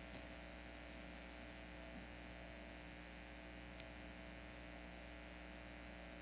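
Faint, steady electrical mains hum with a light hiss, with one tiny click a little under four seconds in.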